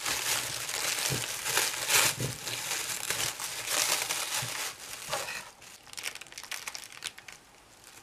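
Clear plastic wrapping film crinkling and crackling as hands pull it off a small plaster figurine. It is dense and loud for about five seconds, then drops to faint, scattered rustles.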